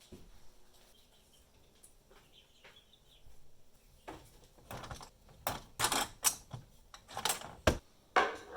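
Woodworking bar clamps being handled: a run of sharp clicks, knocks and short rattles that starts about four seconds in and gets busier toward the end.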